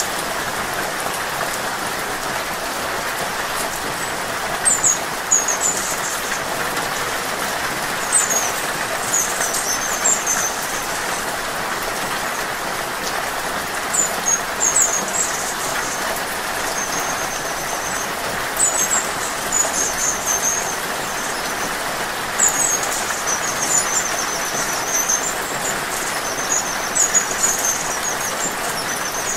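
Steady rain falling, with short series of very high, squeaky chittering notes from a hummingbird every few seconds from about five seconds in; the chittering is the loudest sound.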